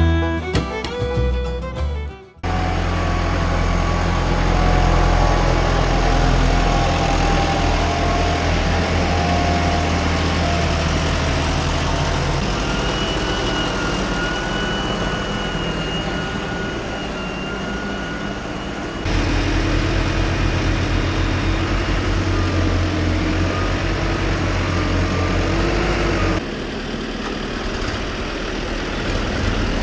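Background music that stops about two seconds in, followed by a diesel tractor engine running steadily, in several spliced-together stretches that change abruptly, with a faint steady whine in parts.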